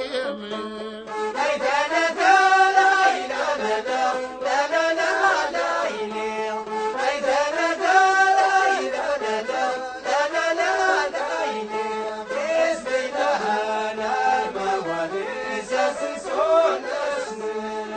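Traditional Amazigh rways song in Tashelhit: a male voice sings a chant-like melody with long held notes that bend from pitch to pitch.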